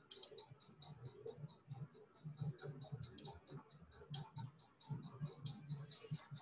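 Faint, rapid, evenly spaced ticking, about seven ticks a second, with a faint low murmur underneath.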